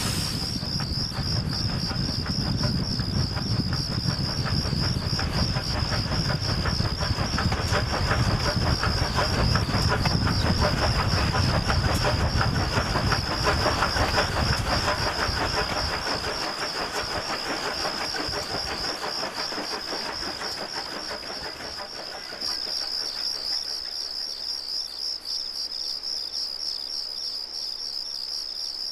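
Small steam tank engine chuffing in a steady rhythm over a continuous chorus of crickets chirping. The chuffing fades away about two-thirds of the way through, leaving only the crickets.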